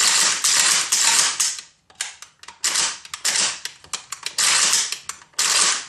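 An AK-47's action worked by hand in a function check of the just-reassembled rifle: three long stretches of sliding, rubbing metal noise with sharp metallic clicks between them.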